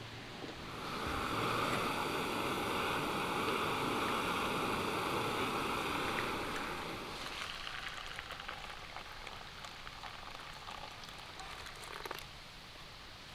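Steady rushing water that swells in about a second in and fades after about seven seconds. A quieter hiss with light crackling rustles follows.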